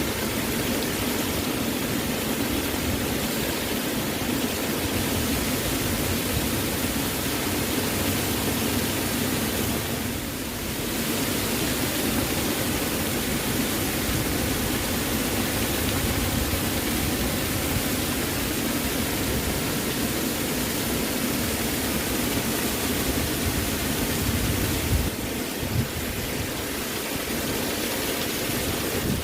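Waterfall, a steady rush of falling water that makes an even noise from deep to high. The level dips briefly about ten seconds in, and there are two short low thuds near the end.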